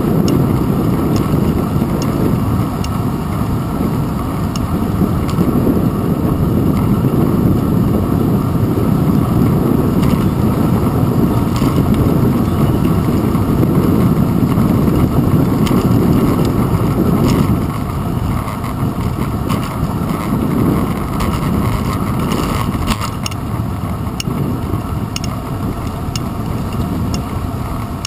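Steady low rumble of wind and road vibration on a handlebar-mounted GoPro Hero 2 while cycling on a paved path, with a few light clicks scattered through it.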